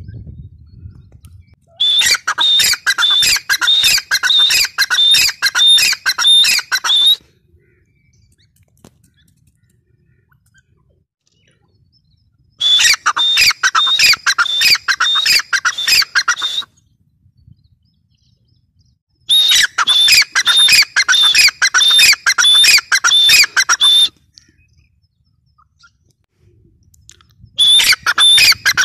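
Grey francolin calling: loud bouts of rapidly repeated shrill notes, each bout lasting four to five seconds, four bouts in all with quiet gaps between.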